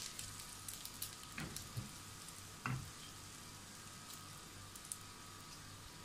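Faint, steady sizzling and crackling of a little hot oil around breadcrumb-coated chicken keema cutlets shallow-frying in a pan, with a few soft knocks in the first three seconds.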